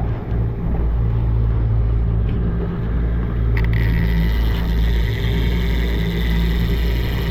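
Fishing boat's engine running steadily, a loud low hum. About halfway through, a higher hiss and a thin whine join in.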